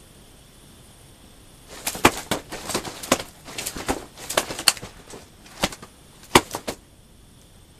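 Rustling and clicking of something being handled by hand: a burst of sharp snaps and crackles lasting about five seconds, starting about two seconds in, the loudest snap near the end.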